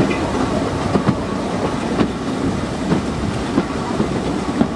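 Steam-hauled passenger train rolling along the track, heard from a carriage: a steady rumbling rattle of the carriage wheels with a sharp click about once a second.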